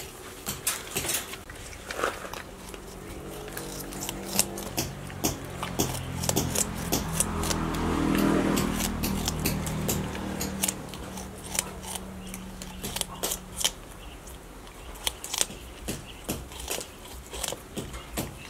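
Crested porcupine gnawing and crunching a piece of watermelon, a quick irregular run of sharp crunching clicks. A low hum swells and fades in the middle, loudest about eight seconds in.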